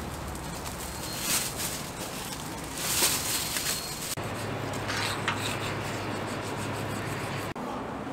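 Plastic takeout bags rustling and crinkling in several short bursts as an order is packed, over a steady background hum.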